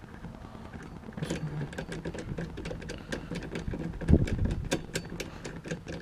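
Hand ratchet wrench clicking at a few clicks a second as the nut holding the steering hub on the column is run down, with a couple of dull knocks about four seconds in.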